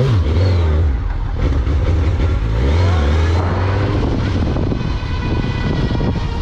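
Suzuki GSX-R1000 inline-four engine running and being revved: the revs rise right at the start and stay up for about a second and a half, ease, climb again from about two and a half seconds in, then settle lower near the end.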